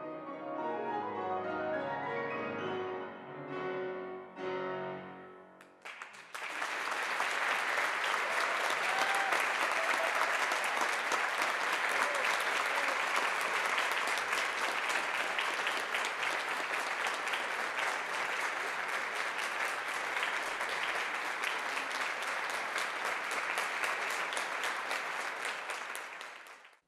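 A piano piece ends on its final notes about six seconds in, then an audience applauds steadily; the applause cuts off suddenly near the end.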